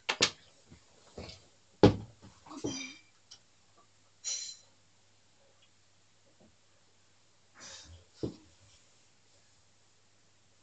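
Scattered handling knocks and thumps from someone moving about close to the microphone, the sharpest about two seconds in, with a brief squeak about four seconds in and quiet stretches between.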